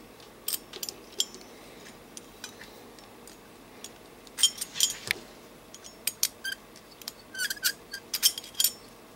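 Light metallic clicks and clinks from the Optimus Polaris stove's burner, pot supports and small metal tool being handled and tightened by hand. They come in two clusters of quick clicks, about halfway through and near the end.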